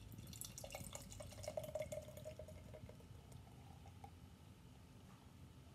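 Sparkling ale being poured from a can into a tulip glass: a faint trickling pour, its tone edging slightly higher as the glass fills, with the light crackle of foam, fading out over the last seconds.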